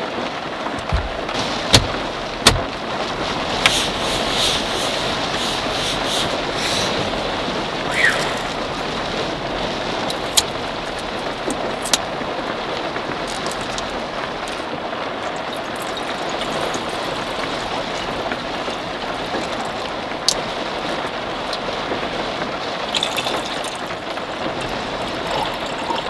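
Heavy rain falling steadily on the car's roof, heard from inside the car. A few sharp clicks and clinks come from a glass bottle and a steel cup being handled.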